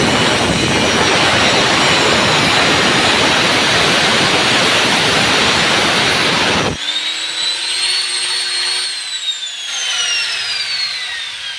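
Angle grinder running under load on steel, a loud grinding hiss, then switched off about two-thirds of the way in, its motor whine falling steadily in pitch as the disc spins down.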